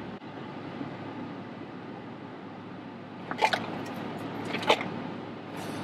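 A blunt being lit with a disposable lighter, heard as three short scratchy clicks and puffs about a second apart in the second half. Under them runs a quiet, steady car-cabin hum.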